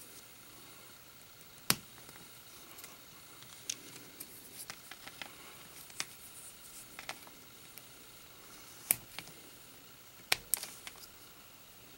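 Plastic LEGO minifigure parts being handled and pressed together: several sharp little clicks spaced a second or more apart, with faint handling rustle between.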